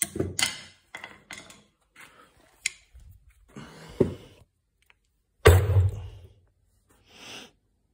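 Steel screwdriver being jabbed point-first into a plywood workbench top, with handling knocks against the bench: a run of irregular knocks and thuds, the loudest and deepest a little past halfway.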